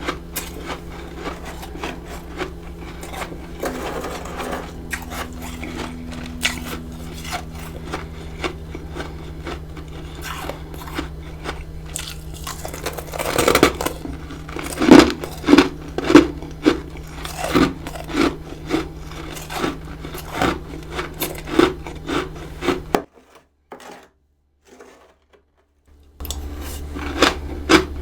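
Freezer frost being bitten and chewed close to the microphone: crisp crackling crunches, then in the middle a run of loud, regular chewing crunches about one and a half a second. The sound drops out briefly near the end before the crunching resumes.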